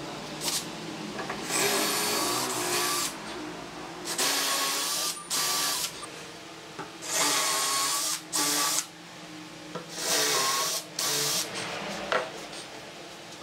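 Cordless drill boring holes into a solid pine tabletop: four runs of about a second each, each followed by a short spurt as the bit is cleared or pulled out, with quieter pauses between.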